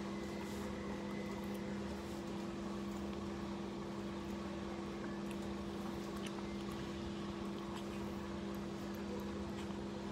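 Steady machine hum holding two constant low tones, with a few faint clicks of a fork against a plastic bowl.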